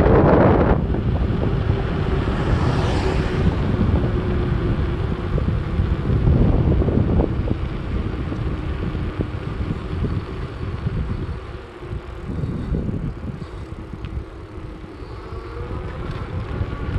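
Wind buffeting the microphone on a fast-moving e-bike, with tyre and road rumble. The rush eases for a few seconds about two-thirds of the way through, then picks up again.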